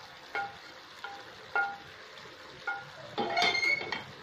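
A spatula knocks and scrapes against a frying pan as fried prawns are tipped out into the curry. There are a few ringing metallic clinks about a second apart, then a busier clatter near the end.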